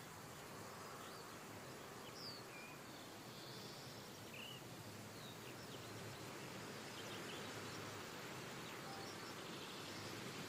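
Faint outdoor ambience: a steady background hiss with a few scattered short bird chirps.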